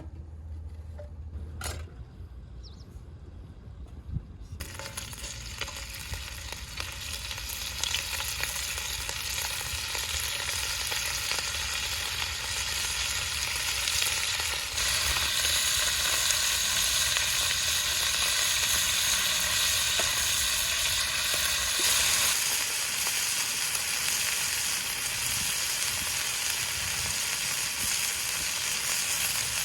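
Food sizzling as it fries in hot oil in a frying pan. The sizzle starts suddenly about four seconds in, after a low hum, and grows louder about halfway through.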